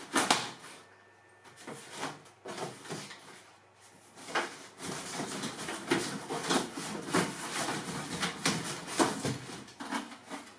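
Handling of a large corrugated cardboard box: a sharp snap as a plastic strapping band is pulled off at the start, then after a quieter pause the cardboard lid scraping and rubbing against the box's sides with small knocks as it is worked up and lifted off.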